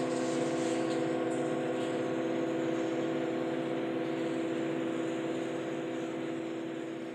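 Hand-hammered seven-metal Himalayan singing bowls ringing together, several steady tones slowly dying away with no new strike.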